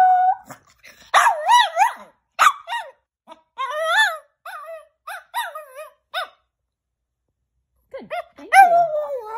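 Chihuahua whining and yowling: a string of short, high, wavering calls, a pause of about a second and a half, then a longer call that slides down in pitch near the end.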